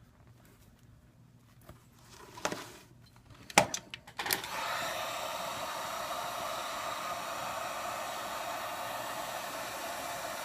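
A few light knocks of handling, then about four seconds in a hot air gun switches on and blows with a steady hiss, heating the iPad 2 to soften the adhesive under the glass.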